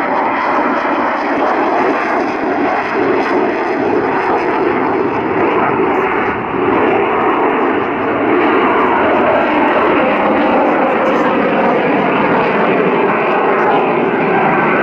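Jet noise of a MiG-29 fighter's twin Klimov RD-33 turbofan engines as it flies overhead: a loud, steady rushing sound that swells slightly about eight seconds in.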